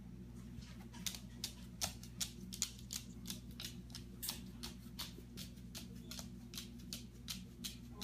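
A caique's claws tapping on a hardwood floor as it hops about: an irregular run of sharp clicks, roughly four a second, over a steady low hum.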